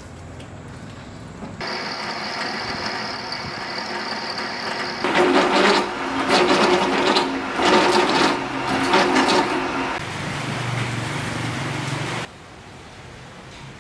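Drill press running with a step drill bit boring through a metal plate held in a vise: the motor's steady whine starts about a second and a half in, then about five seconds of loud, uneven cutting noise as the bit bites into the metal, then a steadier run that cuts off suddenly near the end.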